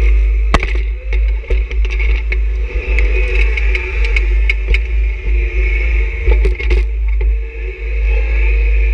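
John Deere 1026R sub-compact tractor's three-cylinder diesel running steadily under load while pushing snow, with scattered knocks and rattles, a cluster of them about six and a half seconds in.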